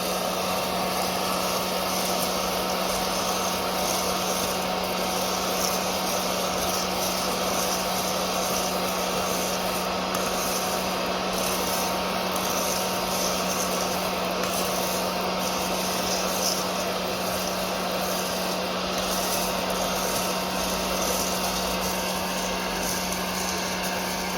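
Aillio Bullet R1 coffee roaster's fan running steadily during the cooling stage after a roast, a constant hum with a higher whine over it.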